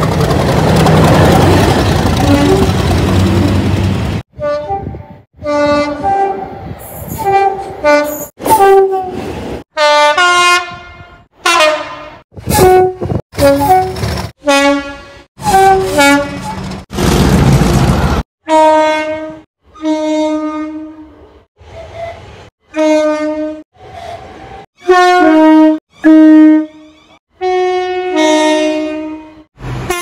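British diesel locomotive two-tone horns sounded in many short blasts of alternating high and low notes. A loud rush of a locomotive passing close fills the first few seconds, and another brief rush comes around the middle.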